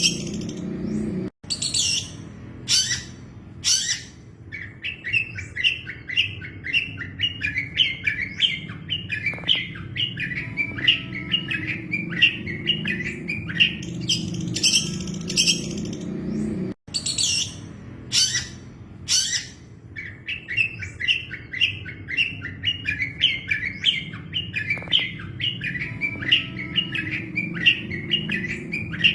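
Long-tailed shrike (cendet) song on a looping recording. A few loud, harsh notes are followed by a long run of quick, rapid chirps, and the same passage repeats about halfway through after a brief dropout. A steady low hum runs underneath.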